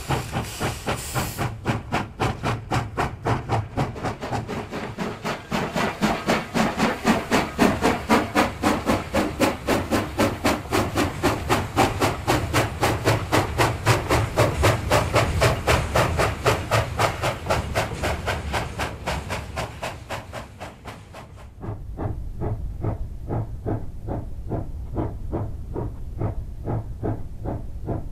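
JS-class steam locomotive working hard, its exhaust beating out a rapid, even chuff. Its cylinder drain cocks hiss briefly at the start. About 21 seconds in, the beats turn duller and more distant.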